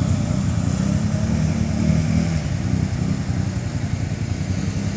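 Can-Am ATV engine running, revving up briefly about a second in and then settling back to a steady run.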